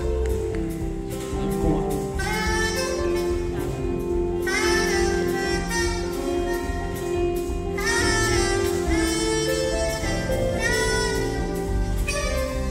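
Live jazz band: a soprano saxophone plays the lead melody in phrases that scoop up in pitch, over electric bass and drums.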